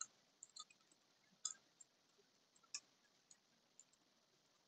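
Faint keystrokes on a computer keyboard typing: about eight short, irregularly spaced clicks over near silence.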